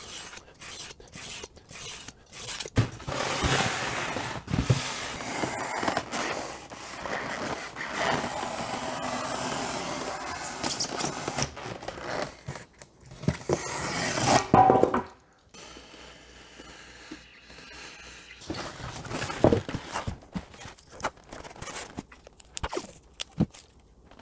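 Snap-off utility knife blade slicing through a styrofoam sheet: long scraping strokes with squeaks, stopping about fifteen seconds in. After that, quieter handling noises and scattered clicks.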